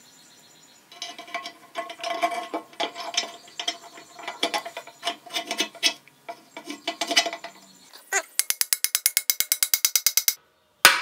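Steel gear and parts clinking and ringing against the cast-iron case of an SM465 four-speed transmission as they are fitted by hand. Near the end comes a rapid, even run of clicks, about ten a second, which stops suddenly.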